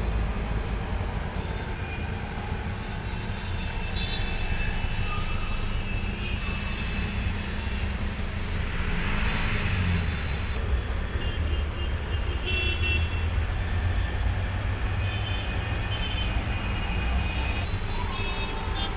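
Road traffic heard from inside an auto-rickshaw on a flooded road: the rickshaw's engine running with a steady low rumble, car horns tooting now and then, and tyres hissing through standing water, with a swell of splashing about nine seconds in.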